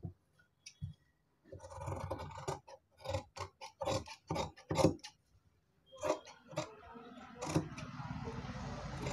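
Large tailoring shears cutting through two layers of cloth to shape a sleeve: a quick series of short snips, then a steady rasp as the blades slide through the cloth in the last couple of seconds.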